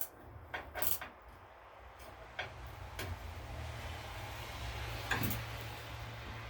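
Sharp metallic clicks from a ratchet wrench working an engine mounting bolt loose, then a few single knocks over a steady low hum.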